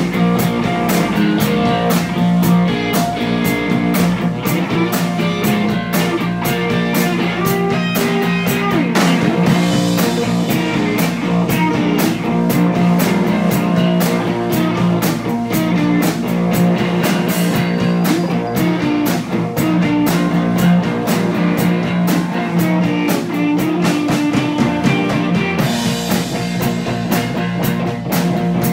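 A live rock band playing an instrumental passage: two electric guitars over a drum kit keeping a steady, driving beat.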